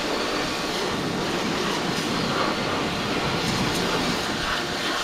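Pressure washer spraying water onto a tractor and the concrete beneath it: a steady hiss of spray over the constant hum of the washer's pump.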